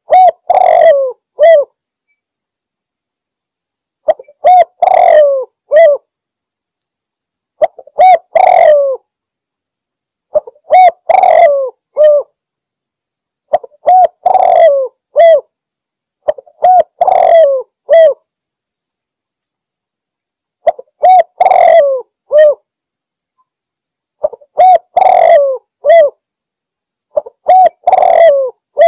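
Spotted dove (tekukur) cooing loudly, repeating its multi-note call phrase about ten times, each phrase under two seconds with a short silence between: a male's challenge call to a rival.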